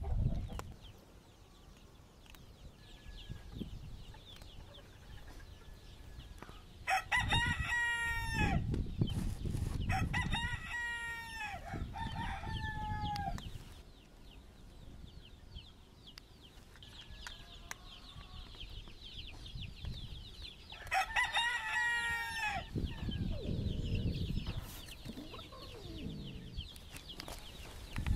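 Rooster crowing: three long crows, each falling in pitch at the end, come one after another about seven seconds in, and one more comes about twenty-one seconds in.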